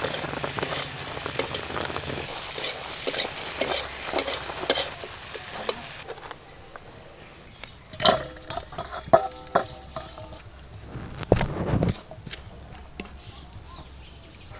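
Wooden spatula stirring cooked rice flour in a metal pan of bubbling water, making rice-roti dough. About six seconds in the bubbling stops and the dough is scraped from the pan into a steel bowl, with scraping, a few knocks and a thump.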